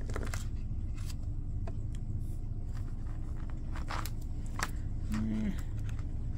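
A few scattered clicks and taps as chunky beads and a white plastic ring are handled and set down on a craft mat, over a steady low hum.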